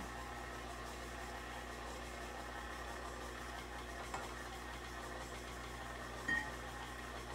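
Tilt-head stand mixer running steadily on low speed, its beater working butter chunks into a dry flour, oat and sugar mix to a crumbly texture. Two light knocks, about four and six seconds in.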